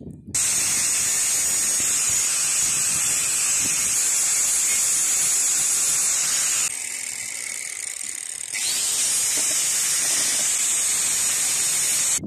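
Angle grinder grinding down a fresh weld where a threaded steel rod joins a handle: a loud, steady, high-pitched grinding that starts suddenly. For about two seconds past the middle it lightens, then returns to full grinding.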